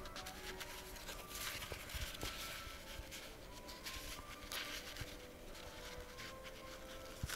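Faint rustling and crinkling of a crepe paper streamer being folded accordion-style by hand and pressed flat, in soft irregular strokes.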